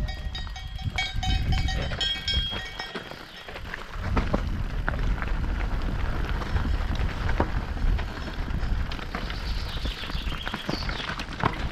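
Mondraker Crafty R 29 mountain bike riding down a rocky trail: wind rumbles on the camera mic while the tyres clatter and knock over loose stones. In the first few seconds, bells ring in several high tones.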